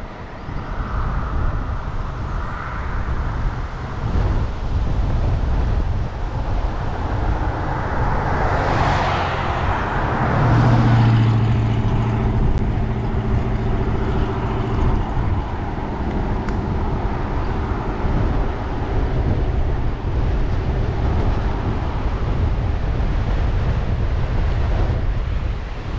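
Wind rumbling on an action camera's microphone during a bike ride, with a motor vehicle passing: its noise swells and fades about eight to ten seconds in, followed by a few seconds of steady engine hum.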